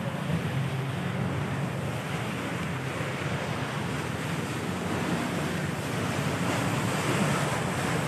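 Steady wind rushing on the microphone, with the low hum of a river cruise boat's engine getting louder toward the end as the boat comes close.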